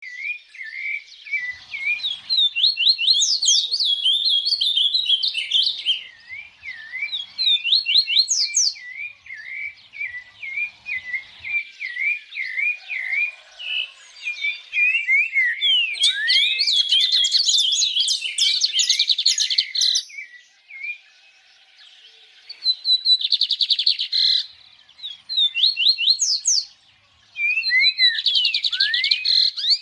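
Small birds chirping and twittering in quick, overlapping high-pitched phrases and trills, with two brief lulls in the latter half.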